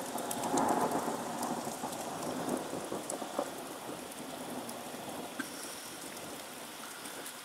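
Thunder rumbling after a lightning flash, loudest in the first second or two and dying away over about four seconds, over steady rain with scattered drop ticks.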